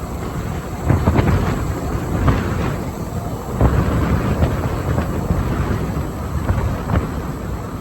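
Wind buffeting the microphone on a moving electric golf cart: a loud low rumble that surges about a second in and again about three and a half seconds in.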